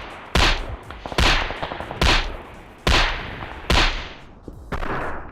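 Latency-test sound played from a phone: sharp cracks repeating evenly about every 0.85 s, each with a short ringing tail. Near the end the cracks give way to two softer, longer swells.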